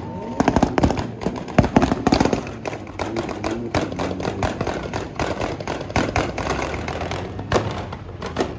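Car engine running with many irregular sharp pops and bangs.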